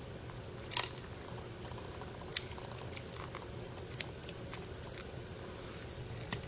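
Sparse light metallic clicks and taps of a hex key and small metal parts being handled while a screw on a sewing machine's thread trimmer motor assembly is tightened, the loudest a short rattle about a second in. A faint steady hum runs underneath.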